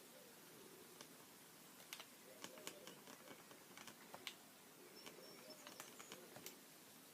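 Near silence, with faint scattered light clicks and taps clustered a couple of seconds in, and a few faint short high chirps later on.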